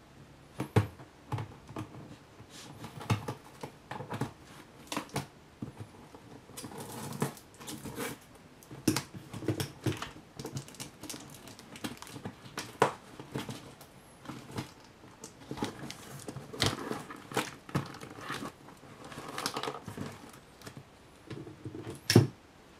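A cardboard shipping box being opened with scissors and handled: a run of irregular snips, scrapes, taps on the cardboard and crinkling of packing tape, with one sharp knock near the end.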